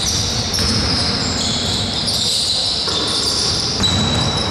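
Sounds of basketball play on a gym floor: the ball bouncing, players' footsteps, and sneakers squeaking in high-pitched streaks that come and go every second or so.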